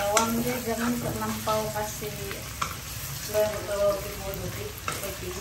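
Salted terubuk fish and shallots sizzling in a non-stick wok as a wooden spatula stirs and scrapes through them, with scattered short clicks.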